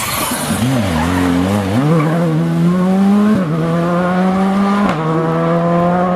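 Skoda Fabia R5 rally car's turbocharged four-cylinder engine, its revs rising and falling as the car slides through a loose, dusty corner. It then accelerates hard away, pitch climbing, with two upshifts about three and a half and five seconds in.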